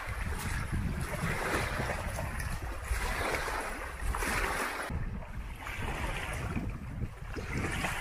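Small lake waves lapping and washing onto a sandy shore, swelling in about every second and a half, with a steady low rumble of wind on the microphone.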